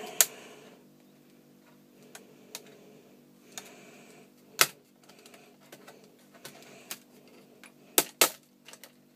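Plastic casing of an eMachines D620 laptop being prised up by hand, its clips giving a few sharp clicks: a loud one at the start, another about halfway, and two close together near the end, with fainter ticks between.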